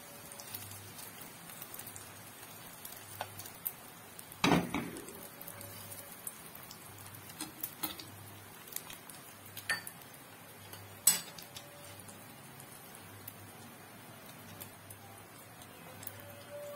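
Beaten egg frying in hot oil in a non-stick pan, a faint steady sizzle, with a few sharp knocks and clicks of a spatula against the pan; the loudest knock comes about four and a half seconds in.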